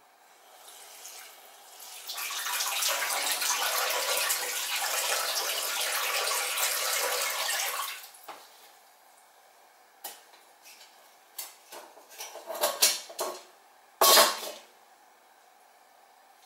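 Kitchen mixer tap running into the sink to soak potted orchids, loud for about six seconds and then shut off. After it come several short knocks and clinks as the pots are moved about in the sink, with one louder clunk near the end.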